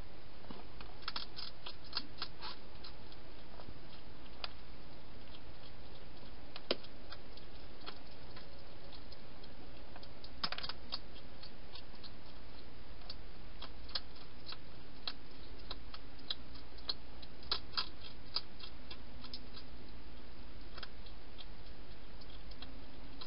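A wild hedgehog eating inside a plastic feeding box: irregular sharp clicks and crunches, some in quick clusters, over a steady hiss.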